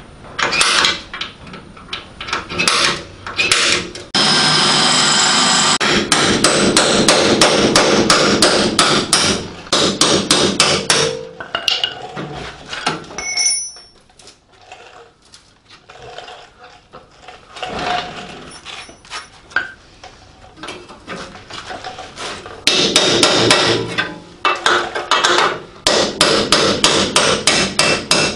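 A hand hammer striking the rusty sheet-steel sill and floor of a 1958 Morris Minor body, knocking out rotten metal. The blows come in two long runs of rapid strikes, with a quieter stretch of scattered knocks in the middle.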